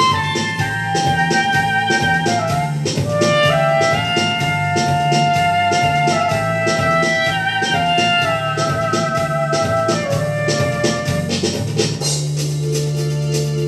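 Soprano saxophone playing a melody over a backing track with a steady drum beat and bass line. About twelve seconds in, the beat thins out and a held low note with sustained higher notes takes over.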